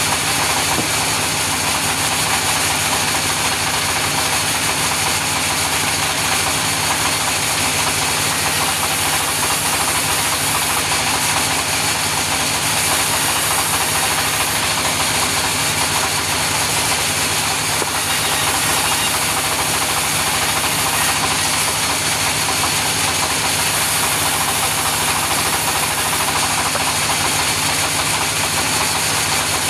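Sawmill saw and the engine driving it running steadily, a loud, unchanging mechanical din with a low engine hum underneath.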